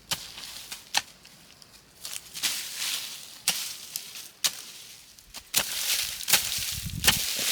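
A hand tool chopping, with sharp strikes roughly once a second and rustling in between.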